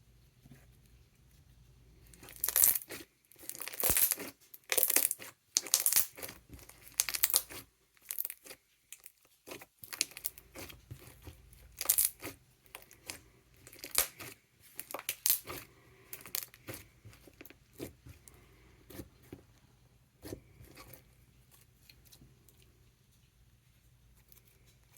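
Thick silken-tofu-texture slime being worked by hand, making runs of loud, crisp clicks and bubble pops. The clicking starts about two seconds in, comes in bursts, and thins out near the end.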